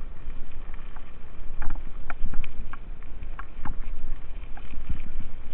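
Mountain bike riding over rough, gravelly pavement: a steady rumble of wind buffeting the microphone, with scattered clicks and rattles from the bike jolting over the surface, thickest in the middle.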